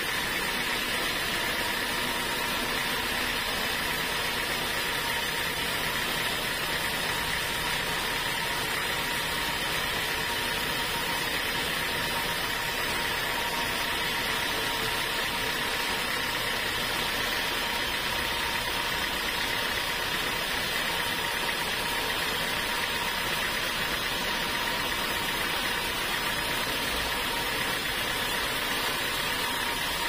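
Band sawmill running steadily as its blade saws through a mahogany log, a constant machine drone with a steady high whine over it.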